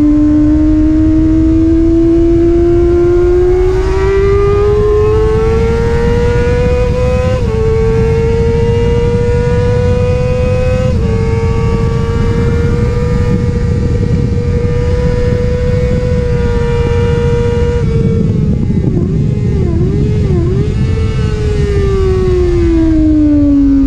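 Sport bike engine at high revs, accelerating hard with two quick upshifts, holding near the top of the rev range down the straight, then coming off the throttle with a few quick blips on the downshifts as the revs fall near the end. Heavy wind rush over the bike-mounted microphone.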